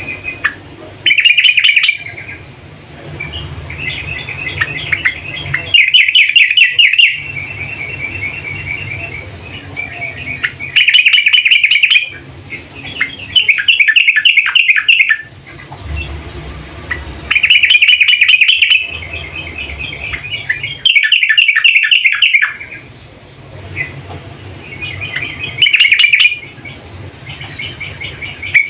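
Yellow-vented bulbul (trucukan) calling: short, bubbly, chattering phrases repeated every few seconds, given as a female's call to draw a male.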